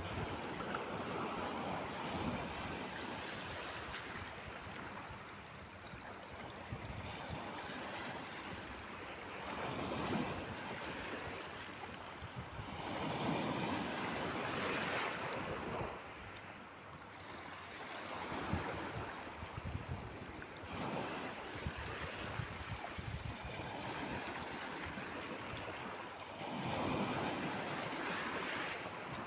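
Sea waves breaking and washing, swelling louder now and then as bigger waves come in, with wind buffeting the microphone.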